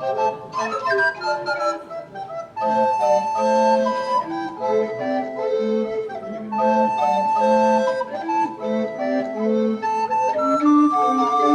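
Live Andean-style ensemble music: quena flutes playing a melody in held notes over sustained chordal accompaniment.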